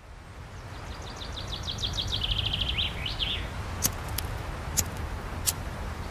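A bird sings a trill of chirps that speeds up and ends in a couple of quick sweeps. Then come four sharp single clicks of a lighter being struck, over a low steady rumble.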